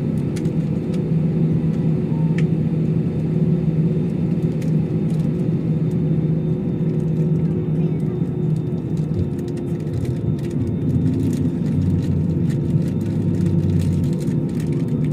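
Jet airliner's engines and airframe heard from inside the passenger cabin, a steady, loud, low rumble as the aircraft takes off, with scattered light clicks and rattles.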